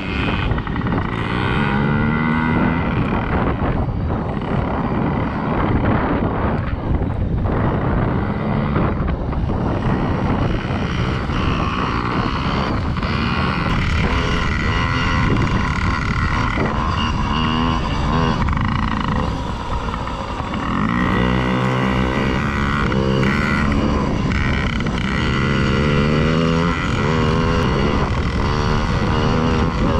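Yamaha PW50 minibikes' small single-cylinder two-stroke engines buzzing and revving. The pitch rises and falls repeatedly as the throttle is worked.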